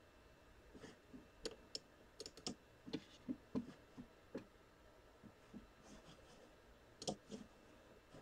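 Faint, irregular clicking of computer keys being typed, starting about a second in, easing off around five seconds and ending with a last quick cluster near seven seconds.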